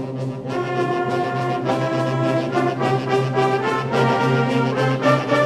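Brass band playing a waltz: a sustained bass line under a brass melody with a regular beat.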